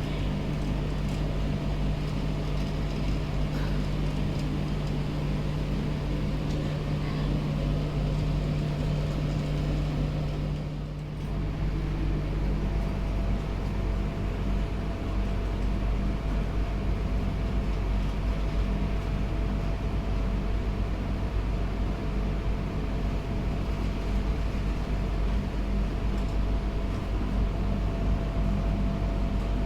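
A steady mechanical hum with a few steady tones. About eleven seconds in it dips briefly, and then it carries on with its tones shifted slightly higher.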